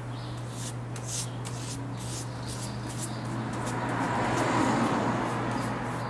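A glue brush spreading cement over a leather insole, the bristles scratching across the leather in quick repeated strokes, busiest about four to five seconds in, over a steady low hum.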